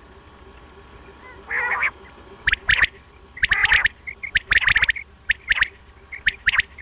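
Quail (batair) calling: a rough call about one and a half seconds in, then a run of short, sharp notes in quick groups.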